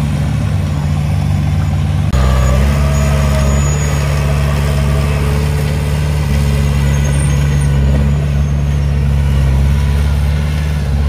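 Komatsu D20P crawler dozer's diesel engine running steadily under load while it pushes soil. The note deepens abruptly about two seconds in.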